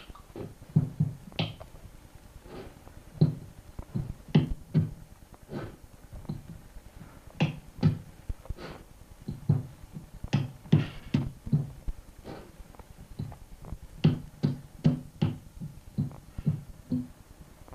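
A person beatboxing into a handheld microphone: short sharp mouth sounds, two to three a second, in an uneven rhythm.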